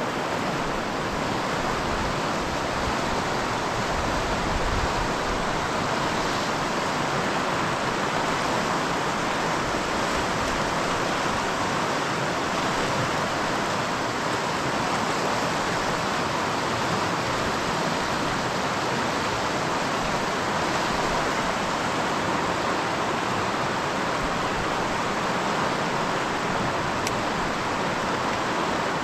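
Rushing water of river rapids: a steady, unbroken noise.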